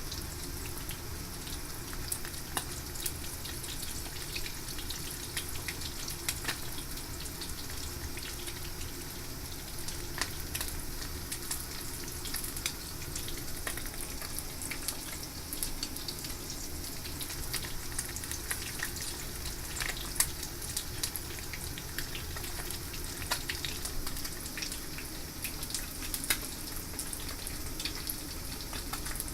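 Food frying in hot oil: a steady sizzle with frequent small crackling pops.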